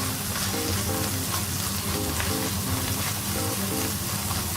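Ginger-garlic paste and red chilli powder sizzling in hot oil in a kadhai as they are stirred with a spoon, a steady frying hiss. Soft background music plays under it.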